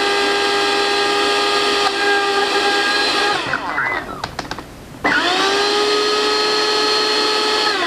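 Countertop blender motor running steadily while blending chickpeas. About three and a half seconds in it stops, its pitch falling away, and a few light clicks follow. About a second later it starts again, rises to speed and runs steadily until it winds down at the end.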